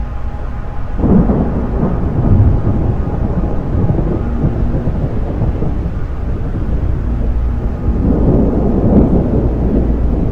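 Deep rumbling of an earthquake's shaking, with loud noisy surges about a second in and again around eight seconds in.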